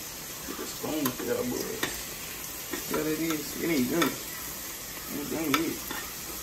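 Bacon strips sizzling in a frying pan, with a few sharp metal clinks of cutlery as a spoon is taken from a utensil holder. A wavering voice-like tone comes and goes three times.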